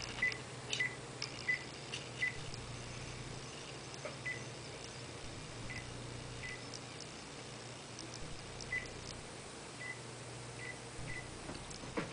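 Faint room noise: a steady low hum with scattered small clicks and short high blips.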